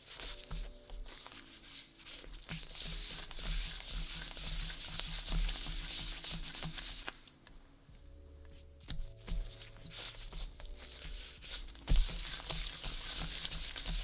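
Soft bread dough rubbed and rolled under a palm on a wooden board: a dry, hissing rub in two spells with a quiet gap between, and a single sharp knock partway through.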